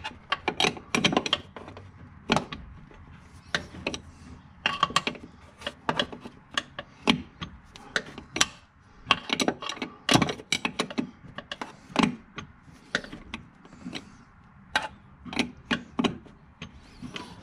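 Wrench clicking and clinking on the upper shock-absorber nut of a C5 Corvette's front suspension: irregular metal-on-metal clicks as the nut is turned a short swing at a time, with little room to spin the wrench.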